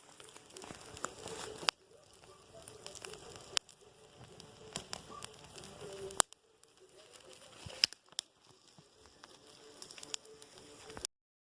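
Wood fire in a plough-disc fire pit crackling and popping with sharp snaps. The sound breaks off abruptly a few times and stops just before the end.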